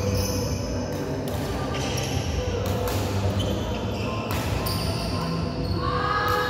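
Badminton doubles rally: several sharp racket strikes on the shuttlecock, mixed with short squeaks of shoes on the court floor.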